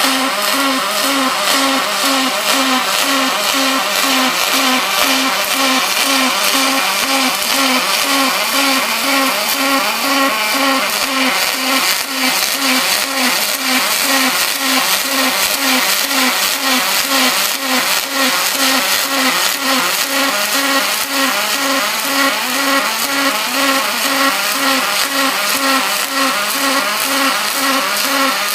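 Robotic MIG arc welding of aluminum: a steady, loud buzzing hiss from the arc with an even pulsing beat of about two a second.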